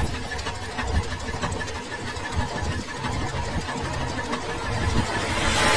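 Juki HZL-009S computerized sewing machine stitching a lettering pattern into fabric: a fast, steady clatter of the needle mechanism, with a brief rush of noise near the end.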